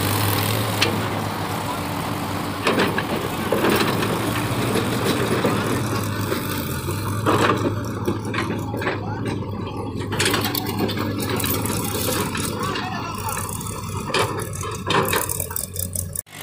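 Diesel engines of a crawler excavator and a farm tractor running steadily, with irregular rattles and clanks as the excavator's bucket swings and dumps soil into the tractor's trolley.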